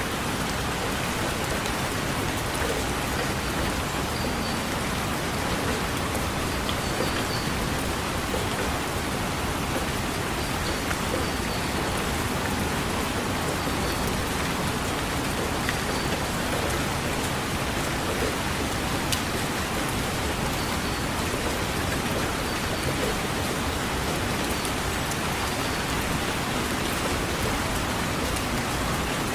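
Steady rain falling: an even, unbroken hiss with a few scattered drop ticks.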